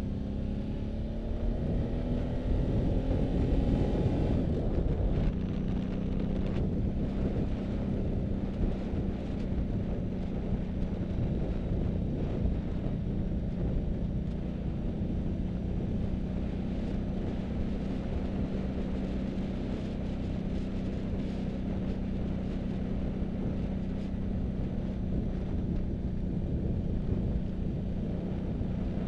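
A vehicle's engine, rising in pitch as it accelerates for about the first four seconds, then running at a steady pitch. Under it, constant road rumble and wind noise.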